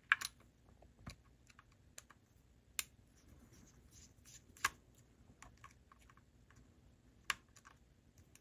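Faint, scattered sharp ticks and clicks of a thin flat-blade screwdriver and small metal parts against a brass HO-scale GP7 locomotive's truck as it is worked on by hand.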